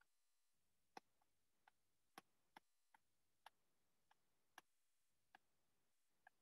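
Near silence with about ten faint, irregular clicks, the clearest about a second in: a stylus tapping on a tablet screen while handwriting.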